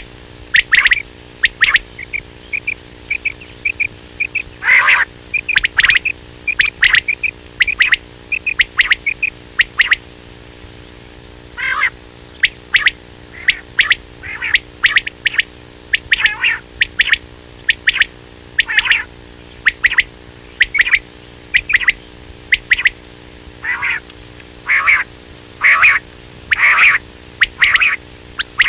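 Quail calling over and over in short, sharp notes, sometimes in quick runs of several, over a steady low hum.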